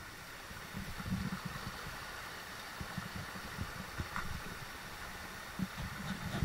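Steady hiss of flowing stream water with irregular low rumbling thumps on the microphone.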